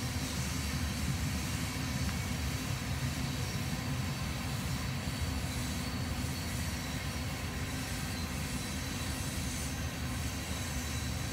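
Honey bee colony buzzing on an open brood frame: a steady low drone with no breaks.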